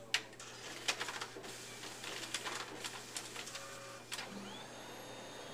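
Office photocopier running a copy job: a sharp click as it starts, then a run of clicks and rattling as the paper feeds through, which stops about four seconds in, over a steady low hum.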